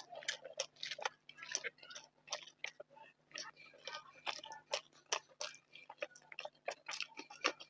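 Close-miked eating: chewing with quick, irregular wet mouth clicks and smacks, several a second, over a faint steady hum.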